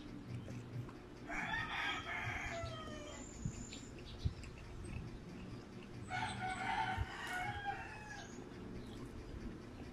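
A rooster crowing twice, each crow about two seconds long and ending in a falling tail, a few seconds apart. A few short knocks come in between.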